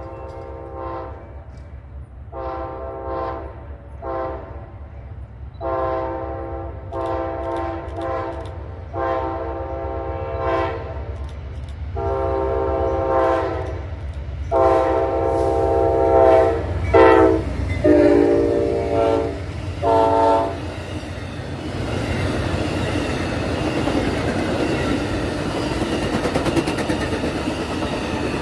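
Diesel locomotive air horn sounding a series of long and short blasts, loudest near the end of the sequence. About two-thirds of the way in the horn stops and the train rolls past with a steady rush of wheel and rail noise over a low rumble.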